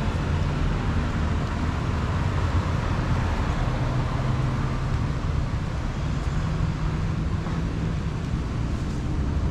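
Passing road traffic: a steady mix of car engine hum and tyre noise.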